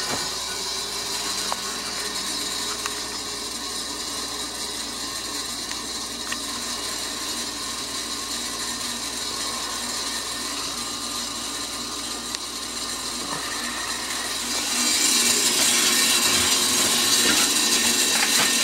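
Water and compressed air rushing out of the end of a garden hose onto grass in a steady flow, as a boiler and its fin-tube baseboard loop are blown out with compressed air to drain them for winter. About three-quarters of the way through, the sound gets louder and hissier.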